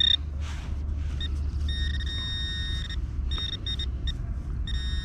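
Metal detector sounding a high-pitched target tone in pulses: one short blip, a long beep about two seconds in, a few quick short beeps, then another beep near the end, as the coil sweeps a buried coin target (a quarter, with foil). A steady low rumble runs underneath.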